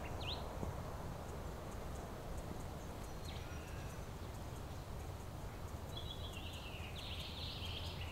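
Birds chirping in short high calls over a steady low outdoor rumble, with a busier run of chirping near the end.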